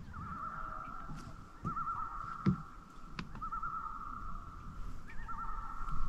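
Common loon giving its wavering tremolo call, a rapidly quavering cry that swells into a fresh phrase about every one and a half to two seconds. A single sharp knock about two and a half seconds in.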